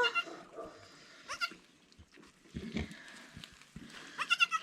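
Goat bleating, high-pitched: a short rising bleat about a second and a half in, then a louder, wavering bleat near the end. Faint knocks of straw and bedding being handled come between them.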